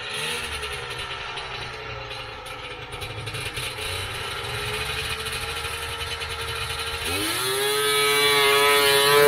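Polaris Indy 650 snowmobile's triple-pipe two-stroke triple running steadily at a distance, then about seven seconds in it revs up sharply as the sled is hit and pulls away, getting louder toward the end. It picks up crisply with zero bog.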